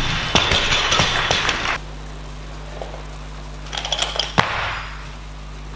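A loaded barbell with bumper plates lowered to the lifting platform, clattering and rattling for about two seconds before cutting off abruptly. Then a steady low hall hum, with a few light clicks and one sharp knock a little past the middle.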